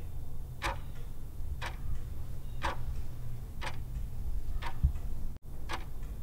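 Clock ticking, one sharp tick each second, over a low steady hum; the sound drops out for an instant about five seconds in.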